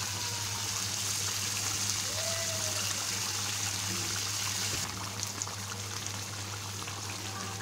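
Thick chicken curry gravy bubbling and sputtering in an open pan as it reduces, nearly dried down. A steady hiss underneath cuts off suddenly about halfway through, leaving the pops of the bubbles.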